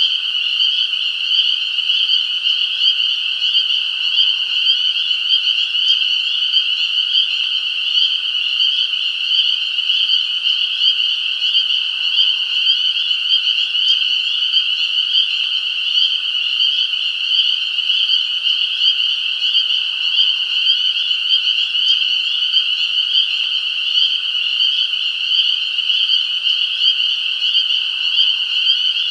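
A dense chorus of many small frogs calling at once, a steady high-pitched mass of overlapping calls with no break. A fainter, lower call comes in about every eight seconds.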